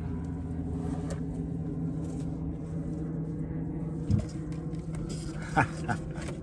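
A boat's motor running at a steady low idle hum. About four seconds in and again near the end come a few short knocks, the loudest about five and a half seconds in.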